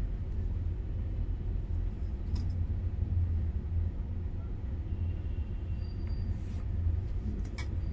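Steady low hum, with a couple of faint clicks about two and a half seconds in and near the end.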